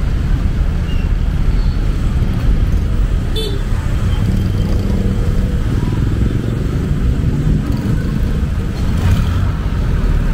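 Busy city street ambience: a steady low rumble of road traffic and vehicle engines, with a short sharp click about three and a half seconds in.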